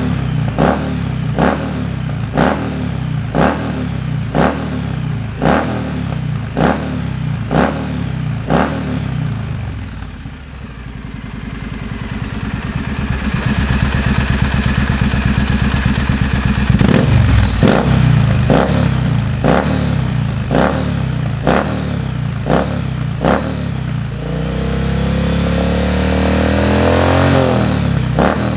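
Triumph Bonneville T100's parallel-twin engine with the catalytic converter removed, a U-pipe fitted and BC Sleeper Pro slip-on silencers, loud and revved at a standstill. It idles between short throttle blips about once a second, drops back around the middle, then holds a steady rev for a few seconds, blips again, and near the end revs up and back down in one longer sweep.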